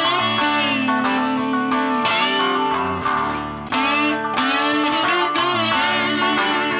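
Background music led by electric guitar.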